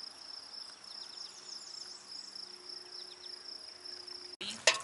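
Steady, high-pitched insect trill from a grassy meadow, with a few faint high chirps over it. Near the end it cuts off abruptly into a sharp click.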